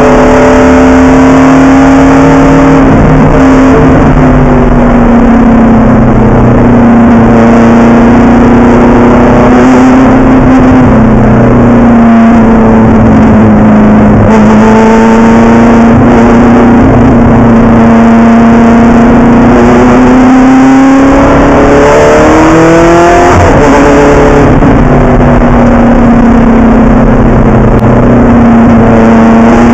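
Ferrari F430 GT race car's V8 engine running hard on track, heard very loud from inside the cockpit. The engine note holds high with slow rises and falls through the lap. About three-quarters of the way in it dips, then climbs steeply as the car accelerates again.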